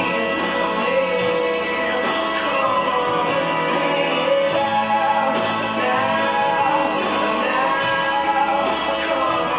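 Background song: singing over guitar music.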